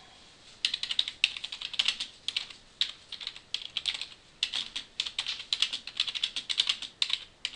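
Typing on a computer keyboard: quick runs of key clicks, starting about half a second in, with short pauses between words.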